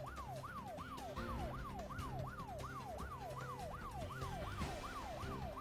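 Breaking-news sound effect: a siren-like tone that sweeps down from high to low again and again, about four sweeps a second, over a low steady drone.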